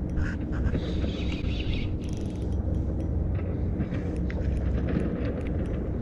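Spinning reel being cranked to bring in a hooked fish: a hissing whir in stretches with light clicks, over a steady low rumble of handling noise from the chest-mounted camera.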